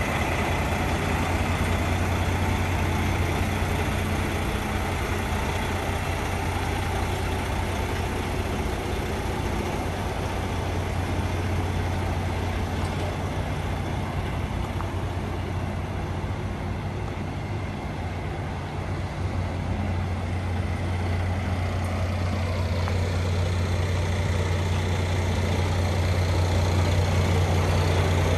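Kenworth T680 semi-truck's Paccar MX13 diesel engine idling steadily, an even low hum that grows a little louder near the end.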